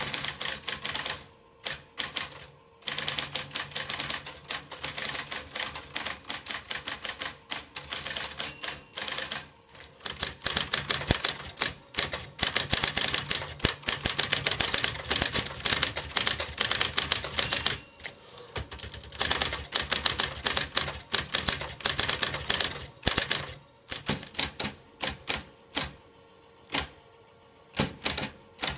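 Remington 700 electric typewriter being typed on: fast runs of electrically driven key strikes, loud and clattering, broken by a few short pauses.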